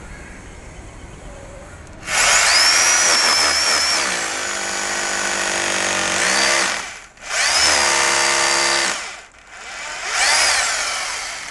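Hyundai 20 mm SDS Plus rotary hammer in hammer-drill mode boring a hole into a wall. It runs in three bursts: a long one of about five seconds starting about two seconds in, then two shorter ones, the last fading near the end.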